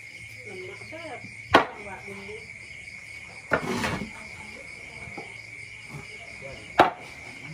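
Kitchen knife chopping raw pork belly on a wooden chopping block: two sharp chops, about a second and a half in and near the end, with a shorter rough clatter in the middle. Crickets chirp steadily throughout.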